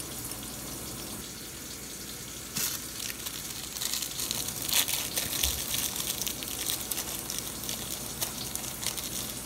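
Thin plastic wrapper of a peppermint candy crinkling as it is worked open by hand, in irregular crackles from about two and a half seconds in, over a steady hiss.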